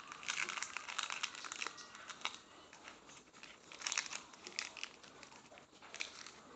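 Fibrous mango seed husk being pried open and torn apart by hand, crackling and tearing in several spells, loudest about four seconds in.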